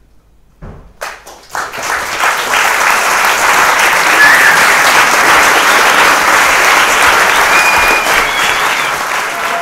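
Theatre audience applauding: a few scattered claps about a second in swell quickly into full, steady applause, with a few short calls from the crowd.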